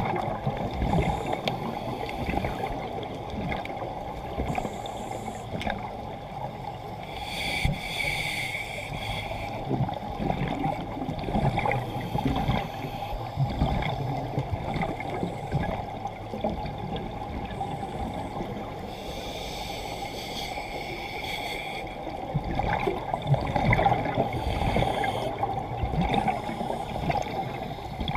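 Muffled underwater sound through a camera housing on a scuba dive: a steady low rumble, with a few gurgling bursts of exhaled regulator bubbles.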